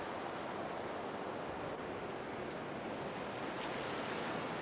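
Steady rush of churning wake water beside a moving boat's hull, mixed with wind noise on the microphone.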